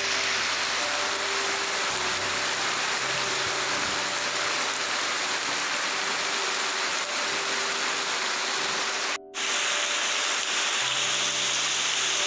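Heavy tropical rain falling steadily on trees and a roof, a dense even hiss, with water pouring off the roof edge. Faint sustained musical notes sit underneath. The sound drops out for a moment about nine seconds in, then the rain goes on.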